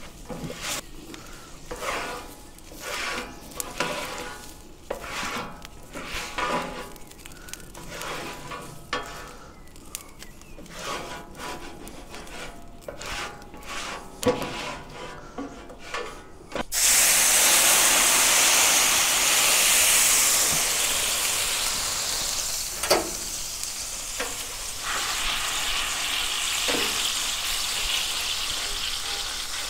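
Scraper pushing leftover food across the hot ceramic-coated plate of a Pit Boss Ultimate gas griddle in repeated short strokes. About seventeen seconds in, water hits the hot plate and sets up a loud, steady hiss of steam, with a few knocks of the tool as the plate is scrubbed to degrease it.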